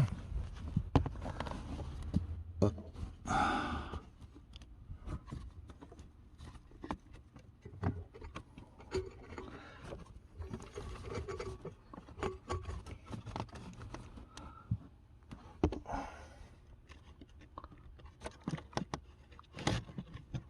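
Scattered clicks, knocks and scrapes of a pleated cabin air filter and its plastic housing being handled and forced into place in a Ford C-Max's air-filter slot, which the AC pipes block. Two short rustling bursts stand out, about three seconds in and again near the three-quarter mark.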